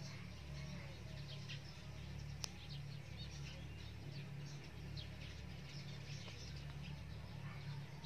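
Birds chirping in many short high notes over a steady low hum, with one sharp click about two and a half seconds in.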